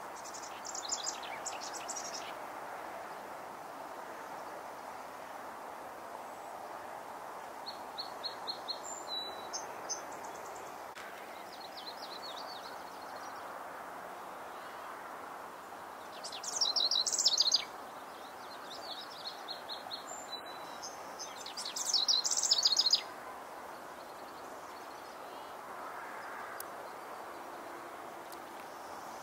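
Small songbirds singing short, rapid trilled phrases, several times over, the two loudest a little past the middle and about three-quarters through, over a steady background hiss.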